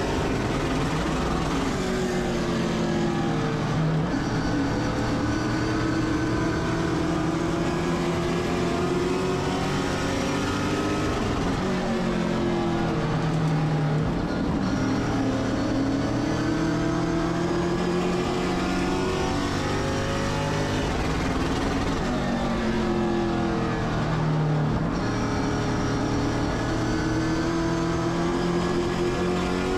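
Race car engine running at racing speed, its pitch dropping as it comes off the throttle and climbing again as it accelerates, several times in a row, as on laps of a short oval.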